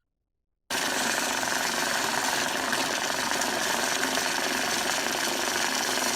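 Electric banknote counter running, bills flicking through it in a steady mechanical rattle that starts suddenly just under a second in.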